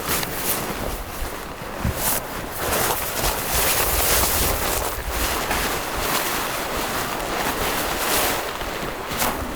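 Snowstorm wind gusting in swells, with the low rumble of wind buffeting the microphone.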